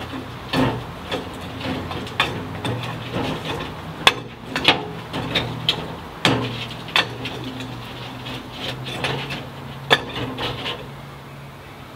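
A steel bar clanking and scraping against red-hot scrap metal and the inside of a 205-litre steel drum furnace, prodding the glowing lump: irregular knocks, the sharpest about four seconds in and again near ten seconds, stopping shortly before the end. A steady low hum runs underneath.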